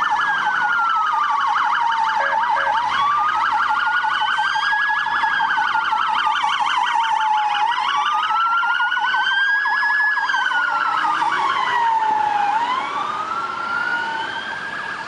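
Police car sirens sounding together: a slow wail rising and falling every few seconds over a rapid yelp, easing off slightly near the end.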